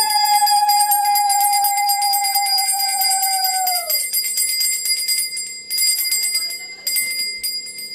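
Brass puja hand bell rung rapidly and without a break, with a conch shell blown in one long steady note over it that drops in pitch and stops about four seconds in. The bell stops near the end.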